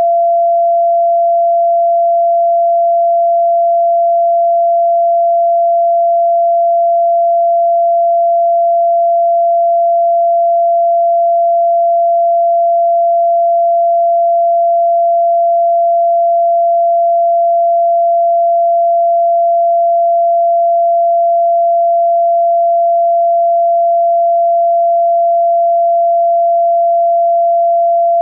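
A steady pure sine tone at about 683 Hz (682.85 Hz, the note F in 432 Hz tuning), held unbroken at one pitch and level.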